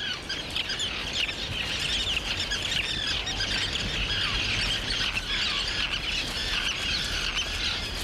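Many terns calling in a breeding colony: a dense, continuous chatter of short, overlapping high-pitched calls.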